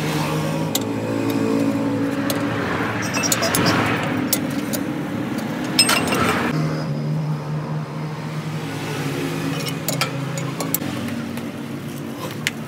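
A motor or engine running steadily with a low hum, under scattered sharp metallic clicks and a rush of noise a few seconds in.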